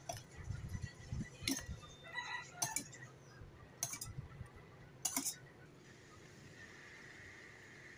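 Metal spoon clinking and scraping against a stainless steel bowl while stirring coconut milk: about five sharp clinks over the first five seconds, some with a short ring. After that only a faint steady high hum remains.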